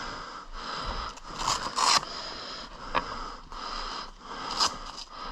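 Close rustling and breathy sniffing noises at the microphone, with louder bursts about a second and a half in and again near the end, and a single sharp click about three seconds in.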